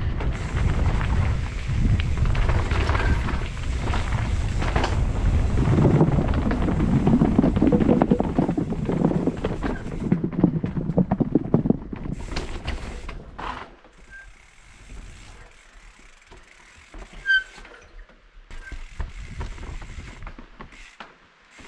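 Mountain bike rolling fast down a dirt singletrack: tyres on dirt and the bike rattling over bumps and roots, with wind on the microphone. About two-thirds of the way through it drops much quieter, with only a few scattered clicks and knocks.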